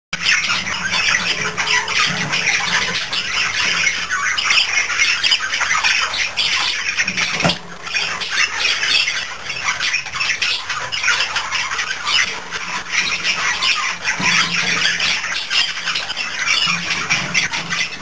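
Budgerigars chattering and squawking, a busy, continuous stream of chirps and warbles.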